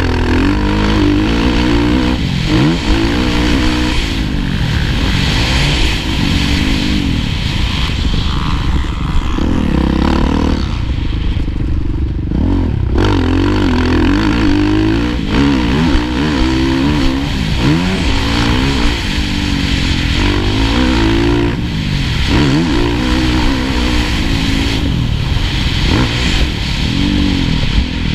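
Kawasaki KX450F four-stroke single-cylinder motocross engine at race pace, repeatedly revving up and falling back as the throttle is worked and gears change, easing off briefly about halfway through, with wind rushing over the camera mic.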